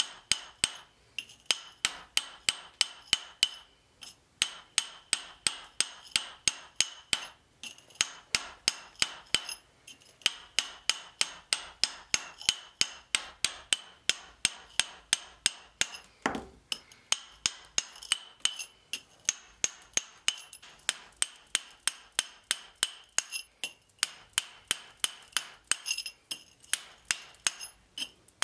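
Steel hand chisel driven into a stone block with a hammer. The strikes are quick and even, about three a second, each with a high metallic ring, and break off briefly a few times. One duller knock comes about halfway through.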